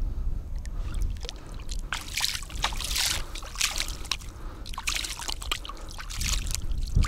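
A hand splashing and rinsing in shallow lake water, with irregular trickling and splashing from about a second in. Low wind rumble on the microphone underneath.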